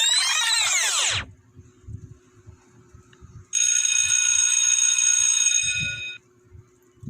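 Stock sound effects in sequence. First a sweep of many rising-and-falling tones, which stops about a second in. Then, a few seconds later, a bell-like ring of several steady tones held for over two seconds before cutting off.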